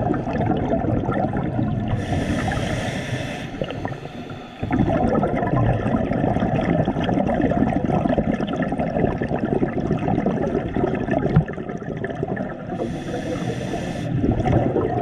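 Scuba diver breathing through a regulator underwater: a short hiss of inhaling about two seconds in and again near the end, each followed by a long stretch of gurgling exhaled bubbles.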